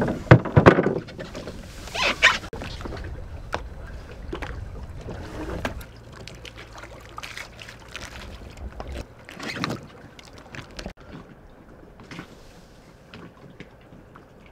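Wooden oars knocking against a wooden rowboat as they are shipped, a cluster of loud clunks in the first second, followed by a few more scattered knocks and fainter handling sounds.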